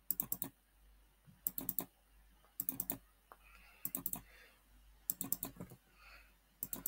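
Clicking of a computer keyboard and mouse at a desk: six quick bursts of three or four clicks each, about one burst every second and a quarter.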